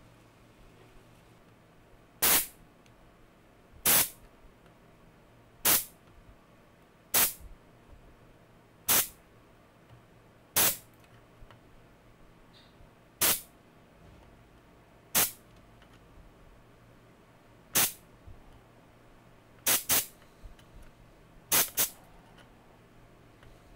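Spring-loaded desoldering pump (solder sucker) firing again and again, a sharp snap about every one and a half to two seconds as its plunger shoots back to suck molten solder off circuit-board pins. Near the end the snaps come twice in quick pairs.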